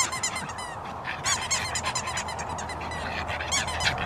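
A dog's squeaky toy squeaking in quick runs as the French bulldog bites and tugs at it: one run carries on through the first second, another comes a little after one second, and a short one comes near the end.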